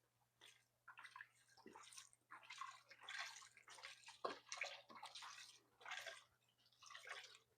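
Beef broth being poured into a pan of onion-and-flour gravy base, a faint liquid splashing in uneven bursts.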